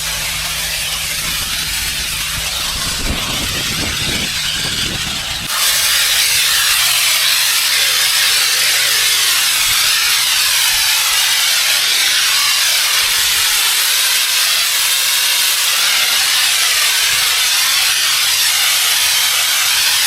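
Pressure washer spraying: a steady hiss of high-pressure water over the low, even drone of the machine's engine. About five and a half seconds in the spray suddenly gets much louder and stays so.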